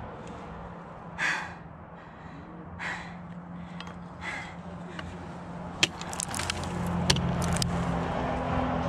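A climber breathing hard in three short rushes, then an ice axe's pick and crampons striking the ice in a cluster of sharp clicks and knocks over a couple of seconds. A steady low hum runs underneath.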